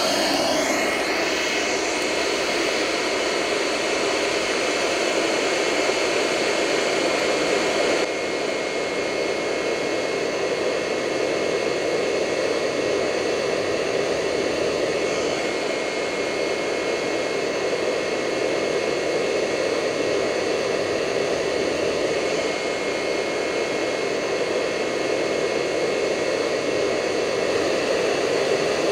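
Cheap hair dryer running steadily as the blower of a charcoal-briquette furnace made from a steel paint can, forcing air through a steel pipe into the burning charcoal: a steady rushing noise with a thin constant whine.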